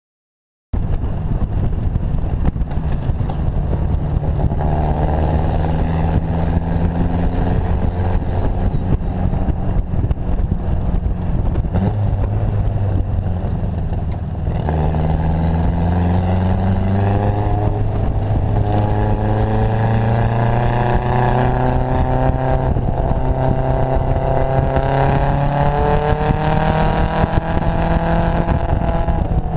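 Datsun Fairlady roadster's four-cylinder engine under way, heard from inside the open car: its note climbs as it pulls, drops back, and climbs again several times as the car works up through the gears.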